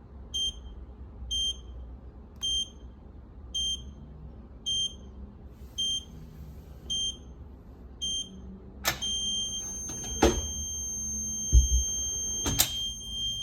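Electronic safe lock keypad giving eight short beeps, about one a second, as the code is entered. After a click, one long steady beep sounds while the lock opens, with a few sharp clicks and knocks from the handle and bolt as the safe is opened.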